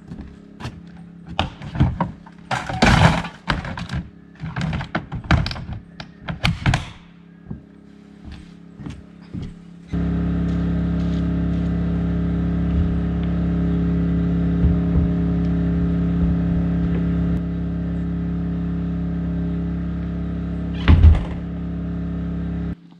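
Footsteps and clattering knocks on a wooden deck. Then a steady low hum sets in abruptly, with one loud thump near the end, likely a wooden outhouse door banging shut.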